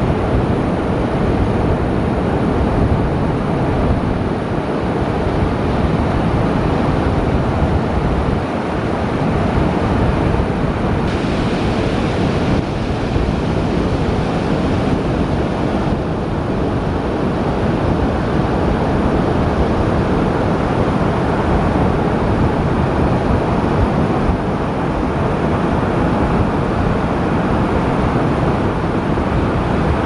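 Steady rushing noise of ocean surf and wind, heaviest in the low end, with no separate calls or knocks standing out.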